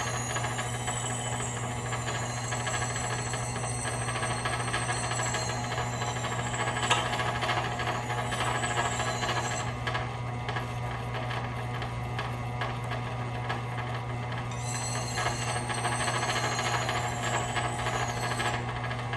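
Axe head grinding against a 23-inch antique wet grindstone, a scraping with a high wavering whine in two long passes, the second starting about three-quarters in. Under it the electric motor driving the wheel gives a steady low hum.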